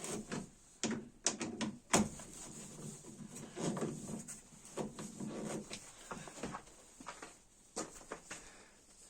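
Hand-work sounds: irregular clicks, knocks and rubbing, with a sharp click about two seconds in, as pieces of stiff rubber hose are handled and fitted onto the tailgate's limit stop.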